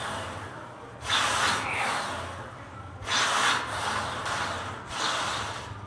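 A man breathing out hard with each rep of a band-loaded Smith-machine bench press: three long, strained breaths about two seconds apart.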